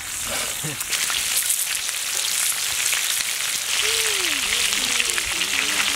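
Chicken drumsticks shallow-frying in hot oil in an open pan, a steady crackling sizzle.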